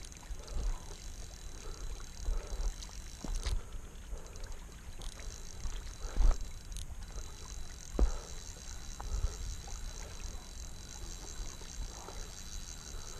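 Wind rumbling on a body-worn camera's microphone, with handling knocks, two of them stronger about six and eight seconds in. Above it runs a faint, steady, evenly pulsing insect chirring.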